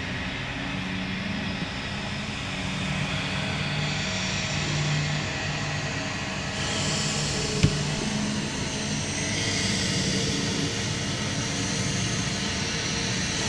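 Steady low rumbling drone with a hiss over it, with one sharp click about halfway through.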